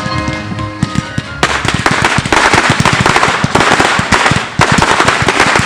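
Fireworks show barrage: a dense, rapid run of bangs and crackling that starts about a second and a half in, as the accompanying music drops out.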